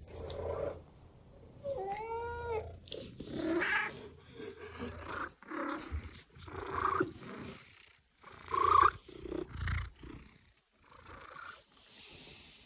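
Domestic cats meowing in a series of separate calls, one with a wavering pitch about two seconds in, the loudest near nine seconds.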